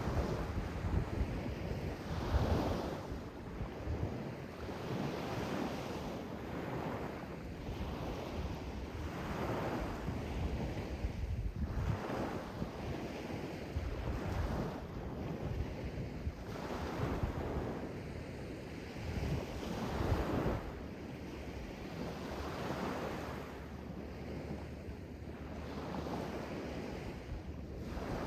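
Sea waves breaking and washing in, a new wash every two seconds or so, with a low rumble of wind on the microphone.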